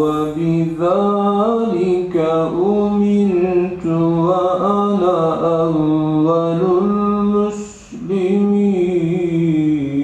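A man reciting the Quran alone in a slow melodic chant, holding long notes and winding through ornamented turns, with a short pause for breath about eight seconds in.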